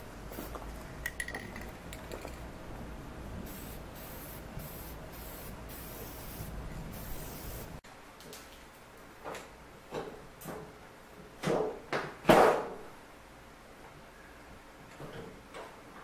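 An aerosol spray can hissing in a series of short bursts. Then a few sharp knocks and clanks of a galvanized sheet-metal panel and a clamp-on bending tool being handled, the loudest about three-quarters of the way through.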